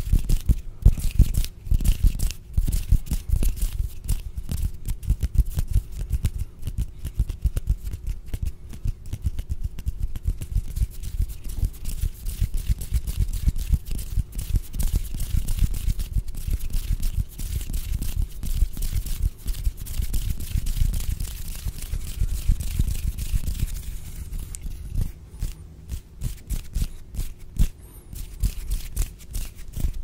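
Hand sounds made right against a microphone: fingers and palms rubbing and fluttering, a continuous crispy, crackly rustle full of fine clicks, with a heavy close-up low end.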